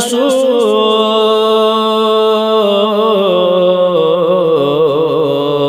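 A man singing a Balti qasida solo, drawing out one long ornamented note that steps down to a lower pitch about three seconds in.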